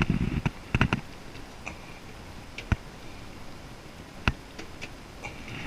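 Crockpot control knob clicking as it is switched off, a few clicks in the first second. Two more single sharp clicks follow about a second and a half apart.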